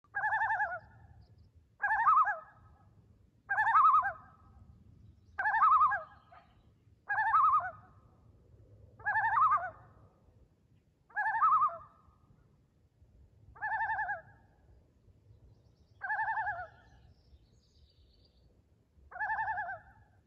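Loon giving a series of about ten short, quavering tremolo calls, roughly every two seconds, the gaps growing longer toward the end.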